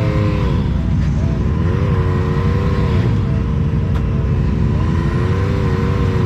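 An off-road vehicle's engine running loudly under load and revving up and back down in several swells.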